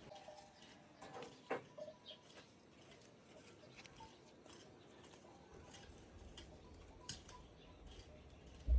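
Faint ambience with scattered light clicks and taps, and a low thump near the end.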